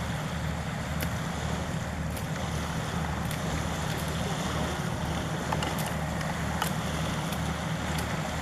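A boat engine's steady low drone over wind and water noise, with a few faint clicks.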